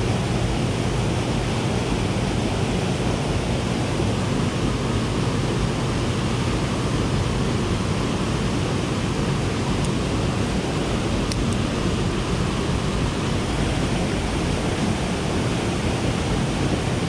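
Steady, even rush of turbulent water from the dam's generator outflow and a small waterfall, with no break or change.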